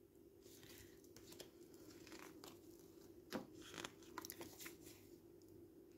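Tarot cards being handled and turned over: faint soft swishes and light clicks, with a sharper tap about three and a half seconds in.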